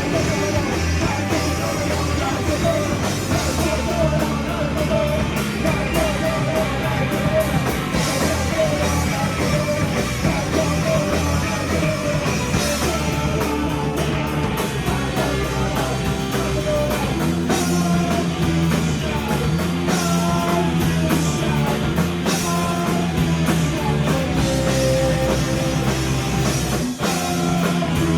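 Live rock band playing a song, with electric guitar and drum kit.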